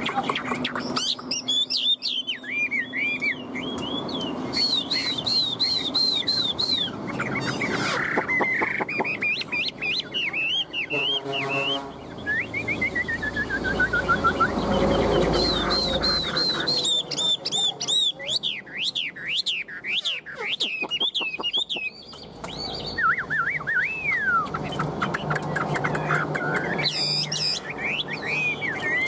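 Chinese hwamei (họa mi) singing a loud, varied song: fast runs of repeated whistled notes and rapid up-and-down trills, with one long, slowly falling whistle about halfway through.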